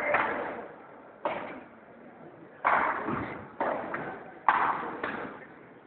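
Padel rally: the ball being struck by the players' rackets and rebounding off the court's glass walls, about six sharp knocks roughly a second apart, each ringing out in the large hall.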